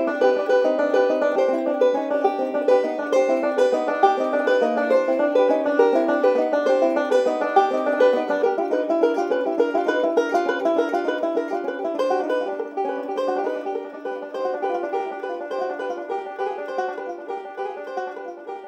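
Two five-string banjos playing a fast bluegrass instrumental in rapid picked notes, growing quieter over the last several seconds.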